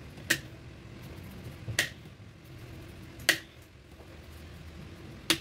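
Kitchen knife peeling an unripe green mango, its blade clicking sharply against a hard surface four times, about a second and a half apart.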